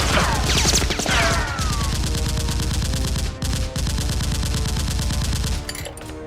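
Rapid automatic gunfire sound effect, long continuous bursts dubbed over a Nerf gunfight, with a few falling whistles in the first second or so; the firing stops shortly before the end.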